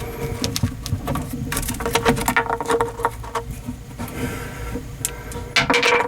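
Hand tools working on a boat's bow eye hardware and its rotted wooden backing block: irregular metallic clicks, knocks and scrapes, with a cluster of louder knocks near the end.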